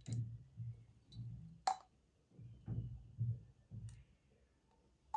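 Rose water glugging as it is poured from a glass bottle into a small spray bottle: a run of short low glugs, with one sharp click about one and a half seconds in.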